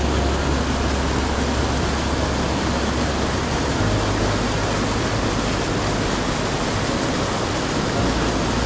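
Mountain stream water rushing over rocks, a steady, even hiss, with a low rumble underneath that shifts about four seconds in.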